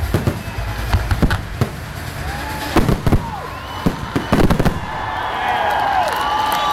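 Aerial firework shells bursting: a rapid run of sharp bangs over a low rumble, the last tight cluster about four seconds in. As the bangs stop, a crowd of spectators starts cheering and grows louder.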